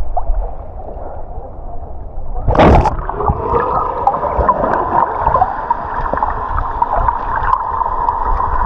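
Sea water sloshing against an action camera held at the surface, then a loud splash about two and a half seconds in as the camera goes under. After that comes muffled underwater sound of bubbles and moving water, with a steady tone running under it.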